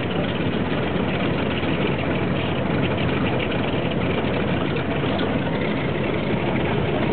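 B-25 Mitchell's twin Wright R-2600 radial engines idling steadily on the ground after start-up.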